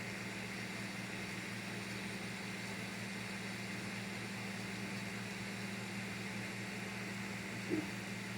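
Creality CR-M4 3D printer running, its fans giving a steady hum and hiss, with one short faint chirp near the end.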